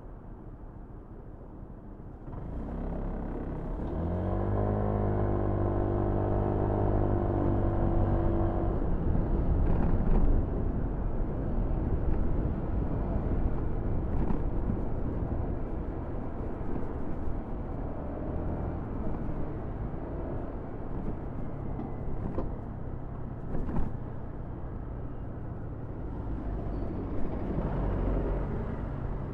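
Motorcycle engine pulling away and accelerating, its note rising in pitch over a few seconds and then holding, followed by engine, wind and road noise riding through traffic; a steady low engine note comes back near the end.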